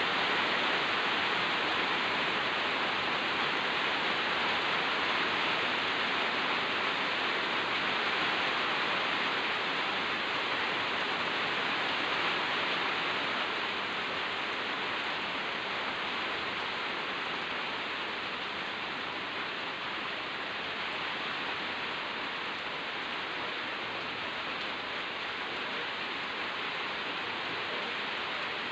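Steady rain falling on garden plants and leaves: an even hiss that turns a little quieter about halfway through.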